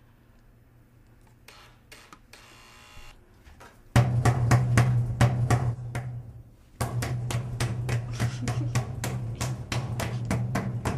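Rapid drumming, about five or six hits a second over a steady low drone, starting suddenly about four seconds in, breaking off briefly and then resuming. Before it, a few faint clicks and a short rustle.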